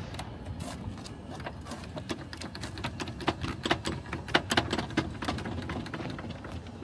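Hand-cranked trailer tongue jack (jockey wheel post) being wound down to set the coupler on the hitch ball: a run of irregular metal clicks and clanks, thickest in the middle.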